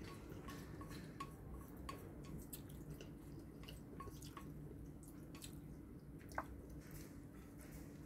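Faint wet mouth sounds of someone chewing spaghetti: small scattered clicks and smacks, with a sharper click about six seconds in.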